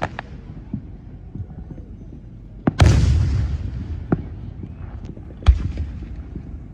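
Fireworks going off: a loud boom about three seconds in that rolls away slowly, a few small pops, and another sharp bang about two and a half seconds later.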